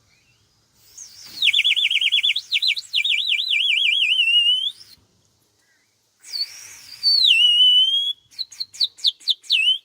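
Handmade Serbian terracotta water whistle, blown with water inside, giving a high bird-like warbling trill for about four seconds. After a short pause it sounds again: a falling glide into a held note, then a quick run of short chirps.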